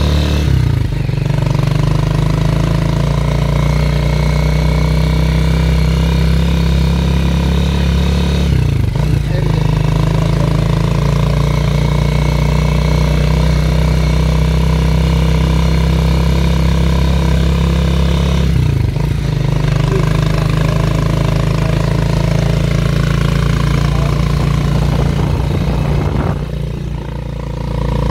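Motorcycle engine of a Philippine tricycle (motorcycle with sidecar) running steadily under way. Its note dips briefly and recovers about a second in, around nine seconds and around nineteen seconds. It eases off and quietens for a moment near the end.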